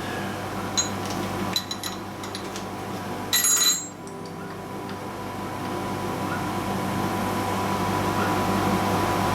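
Milling machine running with a steady hum, with a few sharp metal clinks in the first four seconds, followed by a steady hiss that slowly grows louder.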